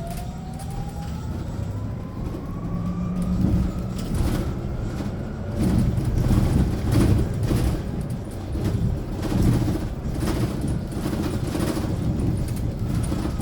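Hyundai Elec City electric bus heard from inside the cabin: the electric drive motor's whine climbs slowly in pitch as the bus gathers speed. From about four seconds in, heavy road rumble takes over, with repeated knocks and rattles from the body and fittings.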